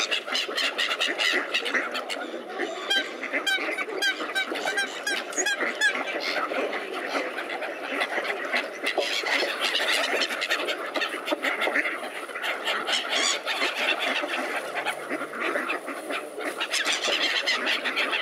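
A mixed flock of mallards and gulls calling all at once, a dense, continuous clamour of quacks, honking calls and cries, with a run of rapid repeated high calls from about two to six seconds in.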